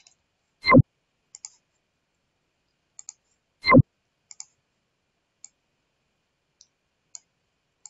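Computer mouse clicking: small sharp ticks at uneven intervals. Two much louder short knocks, one under a second in and one about three seconds later.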